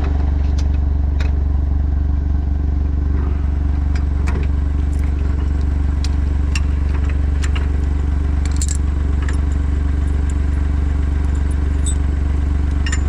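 A vehicle engine running steadily with a low, even drone, with scattered light metallic clinks and clatter over it.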